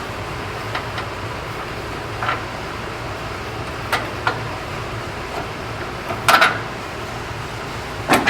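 Metal suspension parts and tools being handled: a few scattered sharp clinks, the loudest a quick cluster about six seconds in, over a steady low hum.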